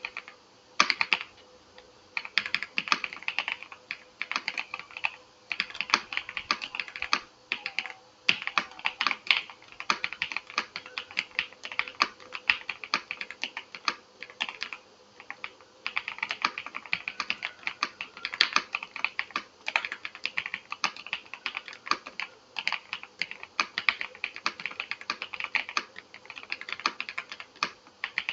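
VGN V87 Pro mechanical keyboard with Kailh hotswap sockets being typed on. The keystrokes come in quick runs of clicks, broken by brief pauses.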